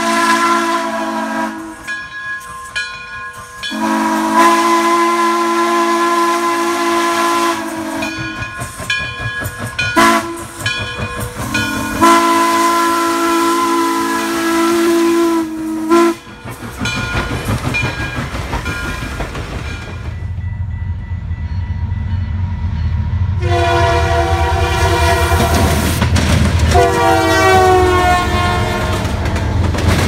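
Frisco 1630, a 2-10-0 steam locomotive, sounding its chime whistle in a series of blasts with breaks between them, the longest about four seconds. Then a freight train rumbles past, and a diesel locomotive horn sounds two long blasts, the second bending slightly in pitch.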